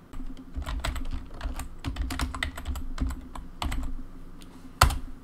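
Typing on a computer keyboard: a quick, uneven run of key clicks with soft thuds, and one harder keystroke near the end.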